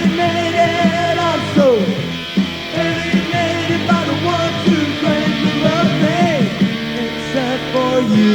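Pop punk band playing on a late-1980s demo tape recording, in an instrumental passage without vocals. The guitar holds notes and slides several of them down in pitch.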